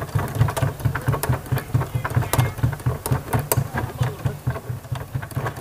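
Keys of a digital piano clacking and thudding in quick succession as it is played through headphones, with the piano's own tone silent.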